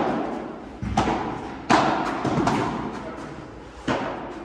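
Padel rally: a run of sharp ball hits from paddles and court, about one a second, four in all with the third weaker, each ringing out in the echo of a large indoor hall.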